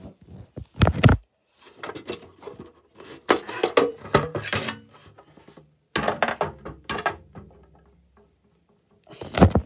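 Handling noise as the plastic front cover of a fire alarm control panel is taken off: bursts of sharp knocks, clicks and scraping, the loudest knock about a second in.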